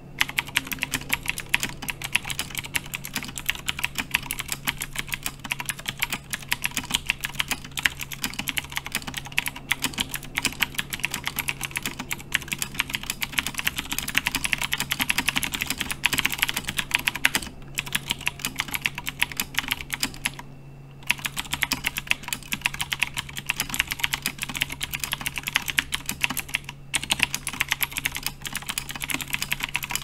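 Fast, continuous typing on an iKBC CD87 tenkeyless mechanical keyboard with Cherry MX Blue switches: a dense run of sharp key clicks, with a brief pause about two-thirds of the way through.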